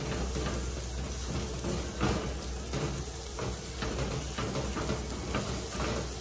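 Silicone spatula scraping and stirring vegetables and scrambled eggs around a stainless steel sauté pan, a string of irregular scrapes and light knocks with the loudest about two seconds in, over a steady low hum.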